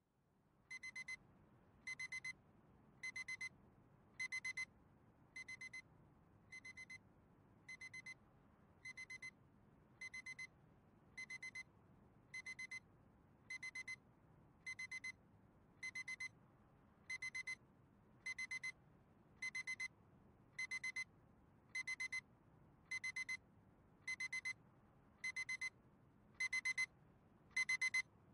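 Electronic alarm beeping: short runs of rapid, high beeps on one steady pitch, repeating about once a second and growing louder near the end.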